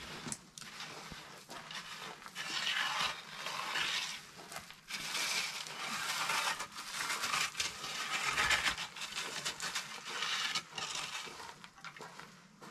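A rake scraping and dragging through loose crushed gravel in repeated strokes, about one every second and a half, getting quieter near the end. The gravel is being levelled before compacting.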